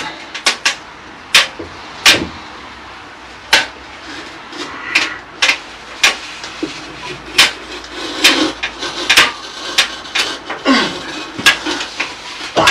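Irregular sharp knocks and taps of hand tools against brick and mortar, a dozen or more strikes spread unevenly, with some scraping between them.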